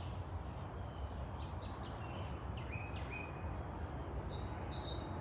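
Outdoor ambience: small birds chirping now and then, with a few short whistled notes over a steady low rumble.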